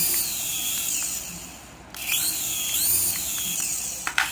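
Toy RC helicopter's small electric rotor motors whining at high pitch as the throttle is worked: the whine dies away about a second in, then spins back up with a rising pitch at two seconds.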